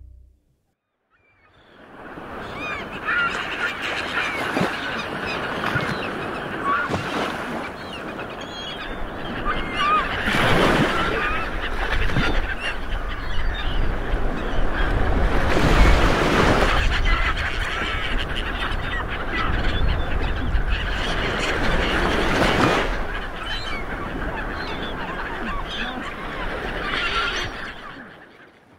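A large flock of water birds calling all at once, with honking calls over a bed of surf that swells louder a few times. It fades in after a brief silence and fades out at the end.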